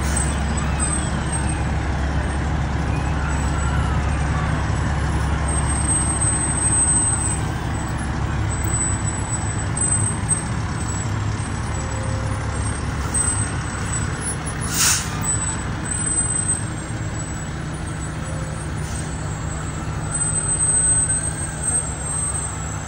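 Heavy parade trucks passing with their diesel engines running in a steady low hum. About fifteen seconds in comes one short, sharp air-brake hiss, and faint wavering tones rise and fall near the start and again near the end.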